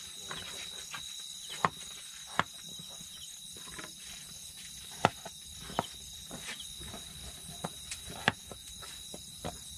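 Crickets chirring steadily in the night, a thin high continuous trill. Over it come about five sharp clicks and knocks as kitchen things are handled on a slatted bamboo table.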